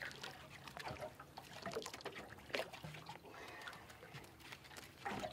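Faint water drips and small knocks as two flathead are lifted on the line out of the water, over a low steady hum.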